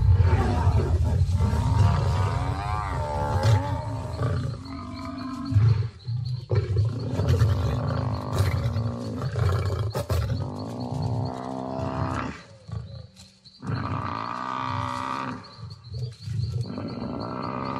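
Lions growling and snarling as they pull down an African buffalo, with long, wavering, drawn-out bellows from the buffalo in distress.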